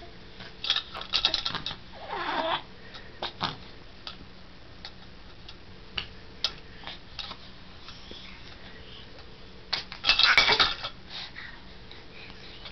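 A baby's short squealing vocal sounds and scattered clicks and knocks from toys or objects being handled, with a loud noisy burst about ten seconds in.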